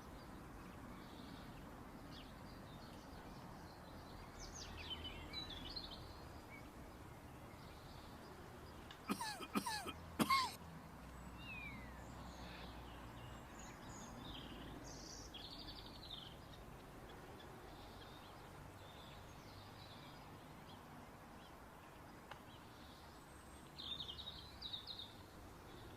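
Faint outdoor ambience with scattered bird chirps. About nine seconds in, a person coughs three times in quick succession.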